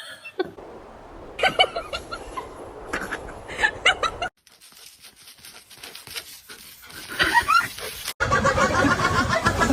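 People laughing and chuckling, with scattered clicks and taps in between; the sound cuts off abruptly twice.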